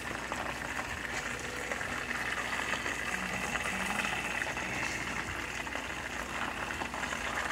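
Flour-coated chicken deep-frying in a pot of hot oil: a steady, busy sizzle of bubbling oil.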